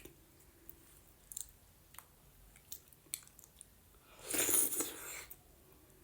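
Close-up mouth sounds of someone eating white maize dhido: soft wet clicks of chewing, with one louder, noisy sound about four seconds in that lasts about a second.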